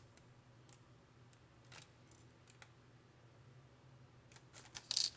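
Faint scattered clicks and light taps from handling a painted fishing lure and the metal clamps holding it, with a louder cluster of clicks near the end. A faint steady low hum runs underneath.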